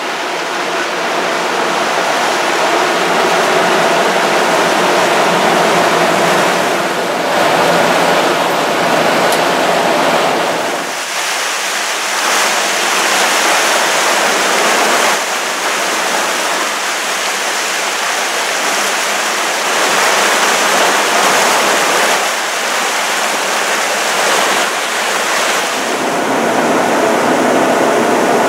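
Steady loud rush of water churned by a moving boat, with wind buffeting the microphone. The sound changes character abruptly twice, about eleven seconds in and near the end.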